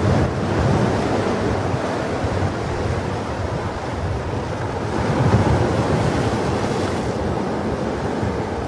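Ocean surf, a continuous rushing wash of breaking waves that swells a little about five seconds in.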